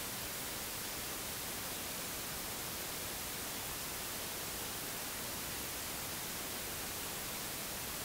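Steady, even hiss with no other sound: the recording's background noise.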